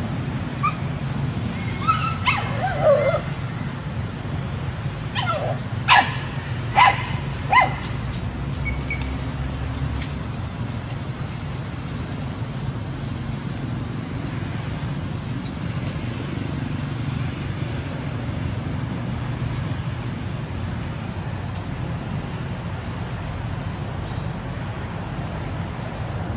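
Small puppy barking at monkeys: a few short yelps in the first three seconds, then three sharp barks a little under a second apart about six seconds in. A steady low hum lies under it throughout.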